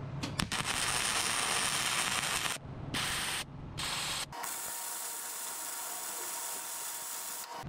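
Wire-feed welder arc crackling as a bead is run along a mitred joint in 5-inch square steel tube. The arc breaks off twice for a moment about three seconds in, then runs steadily and stops just before the end.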